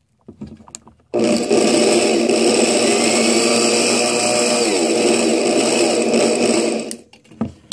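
Power drill motor running steadily for about six seconds, then stopping abruptly. It is spinning two round wire strands and a flat wire clamped in its chuck, twisting them tighter into Tidal coil wire. A few light handling clicks come before it starts and after it stops.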